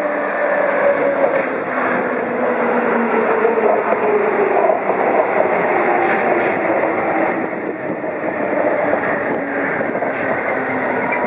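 Chiba New Town Railway 9000 series electric train braking into a station. Its motor and brake whine falls steadily in pitch as it slows, over the running noise of the wheels on the rails.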